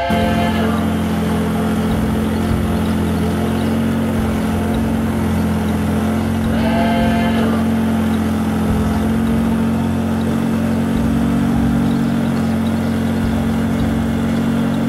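A boat's motor running steadily at one even pitch, heard from aboard. Short higher-pitched tones sound at the start and again about seven seconds in.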